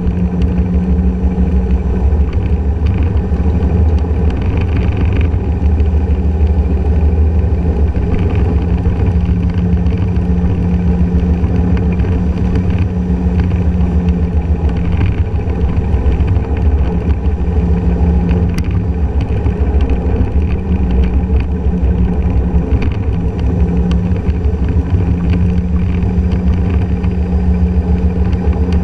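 Honda motor scooter riding along a road, its engine running at a steady cruise under heavy wind rumble on the low-mounted microphone.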